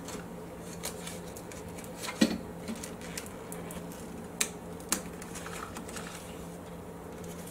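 Light clicks and taps of fingers and fingernails handling the plastic meter housing and old vellum paper behind a vintage receiver's meters, the sharpest click about two seconds in and two more near the middle, over a faint steady hum.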